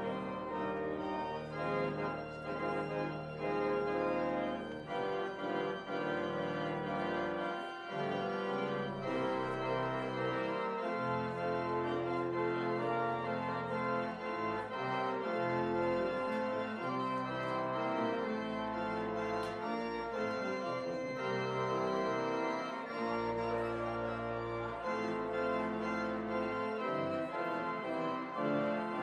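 Organ music: slow, held chords with notes changing every second or so, playing continuously.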